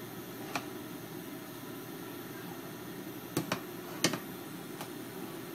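Steady low background noise with a few light clicks and knocks. There is one about half a second in, two quick ones near three and a half seconds, and the sharpest just after four seconds, as a plate is brought down beside the pan.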